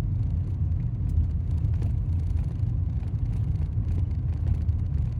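Vehicle interior rumble while driving slowly, a steady low drone of engine and road, with faint irregular clicks over it.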